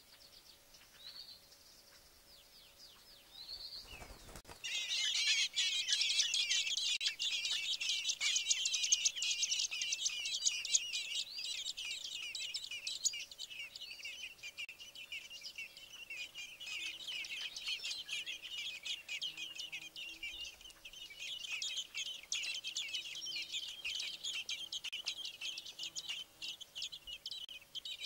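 Fieldfare nestlings begging for food at the nest: a few faint cheeps, then, just after a soft thump about four seconds in, a sudden dense chorus of high-pitched chirping cheeps from the whole brood. The chorus carries on with the parent at the nest, easing off in the middle and swelling again later.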